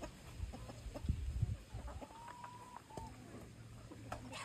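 Chickens clucking and calling, with one held call about two seconds in and a shorter one just after, over low bumps in the first second and a half.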